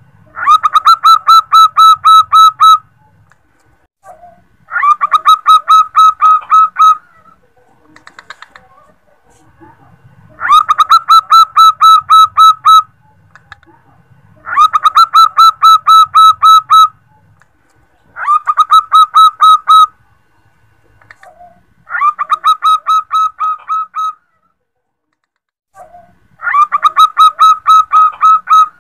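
Female zebra dove (perkutut) calling to attract males: seven phrases, each about two seconds long, of rapid, evenly repeated short cooing notes, separated by pauses of one to two seconds.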